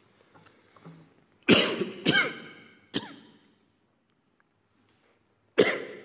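A man coughing hard into a speech microphone: three coughs in quick succession, then another near the end, each echoing in a large, silent hall.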